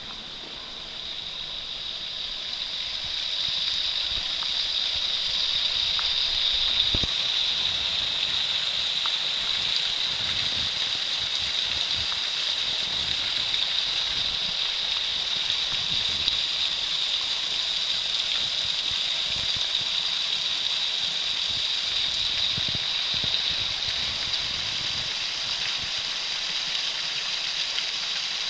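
Small waterfall splashing steadily onto rocks, growing louder over the first few seconds and then holding steady.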